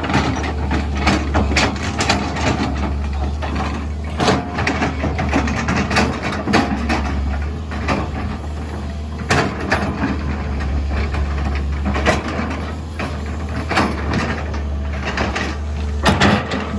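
SANY SY205C excavator's diesel engine running steadily under work, with irregular knocks and clanks throughout.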